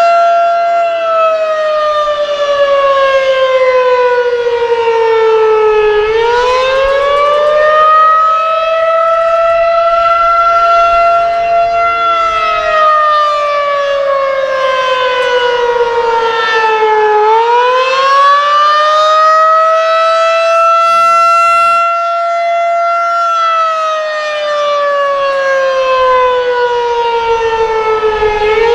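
Federal Signal 2001-SRN electromechanical tornado siren sounding the Attack signal: a slow wail whose pitch falls for about five seconds, swings back up, holds briefly, then falls again, twice over.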